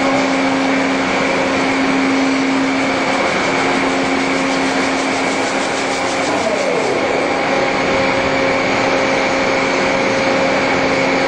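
Bullard Dyn-Au-Tape IV CNC vertical turret lathe running: a loud, steady machine hum with several held tones, with coolant flowing onto the part on the table. About halfway through, a brief tone slides down in pitch.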